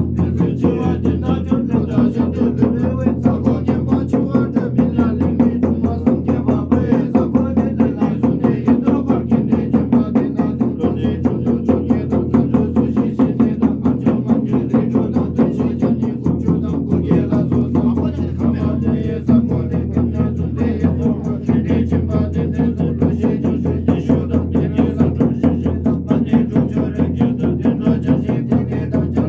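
Buddhist ritual music from the monks: a deep, unbroken drone with a fast, even pulse of about three to four beats a second.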